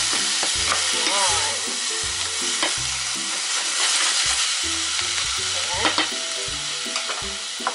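Frozen bitter melon (ampalaya) sizzling in hot oil in a stainless steel pot as a wooden spatula stirs it, with a steady hiss and scattered clicks and scrapes of the spatula against the pot.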